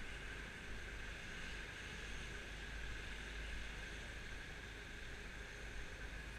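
Kymco Agility 50cc scooter engine idling steadily while the scooter stands still, heard as a low, even drone with a steady hiss over it.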